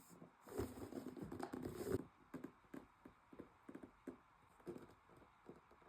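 Packaging being handled: a rustle with small knocks for about a second and a half, then scattered light taps and clicks.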